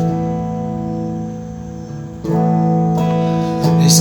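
Acoustic guitar accompanying a slow worship song: a chord rings and fades, a new chord is struck about two seconds in, and another near the end.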